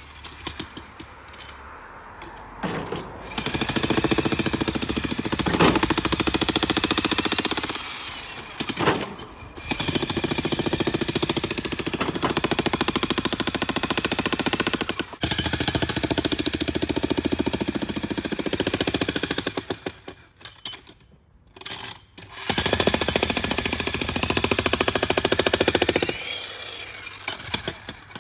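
Bosch Brute Turbo electric breaker hammer pounding concrete in several long runs, stopping briefly between them, with the longest pause about two-thirds of the way through.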